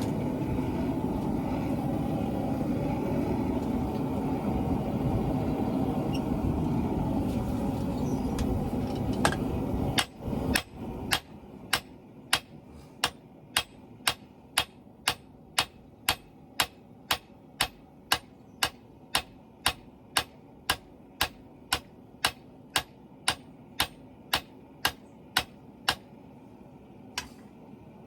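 A steady rushing noise for about the first ten seconds, then evenly spaced hammer blows forging steel on an anvil, about two a second, with one last lone blow near the end.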